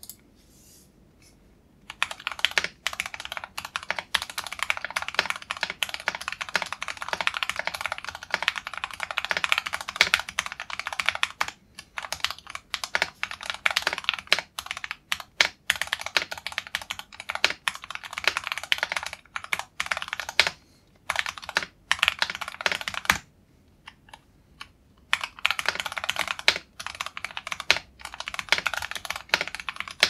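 Fast typing on a custom 64-key mechanical keyboard with lubed Gateron Ink Black linear switches, an aluminium plate and a foam-lined wooden case, sounding smooth and thick. A few scattered keystrokes open, then a steady stream of keypresses begins, with a pause of about two seconds near the end before typing resumes.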